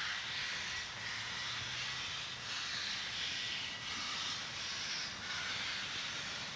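Steam locomotive working toward the listener, its exhaust beats heard as hissing chuffs that swell and fade about once a second.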